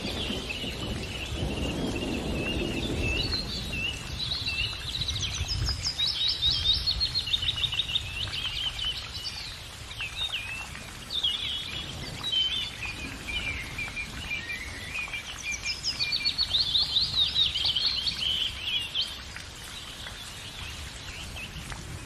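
Small songbirds chirping and singing, with bursts of fast trilled phrases about a quarter of the way in and again toward the end.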